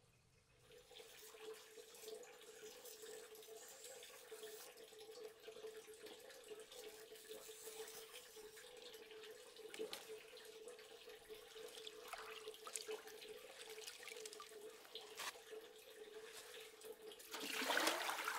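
Faint water sounds of green leaves being swished and rinsed by hand in an aluminium basin of water, with small scattered splashes over a steady faint hum. Near the end the splashing grows louder as the leaves are lifted out and the water is stirred.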